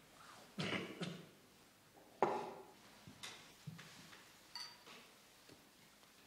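Dishes and cutlery clattering at a dinner table: a few scattered knocks and clinks, the loudest a little over two seconds in, and a short ringing clink of china or glass later on.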